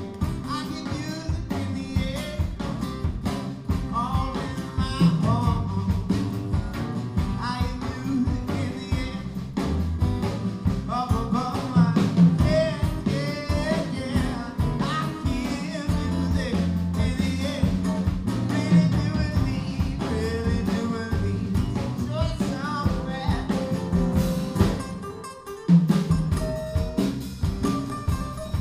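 A live acoustic band playing a gospel song: acoustic guitars strummed and picked over drums, with singing. The music drops briefly near the end, then comes back in hard.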